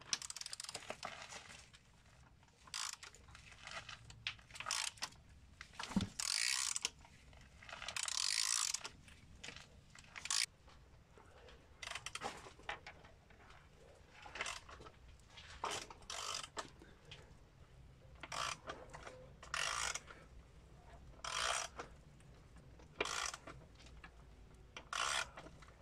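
Ratchet wrench clicking in short bursts at irregular intervals of about a second as the crankshaft of a Nissan 1.5 dCi diesel is turned over by hand. The new timing belt has just been tensioned, and the engine is being turned to check the timing.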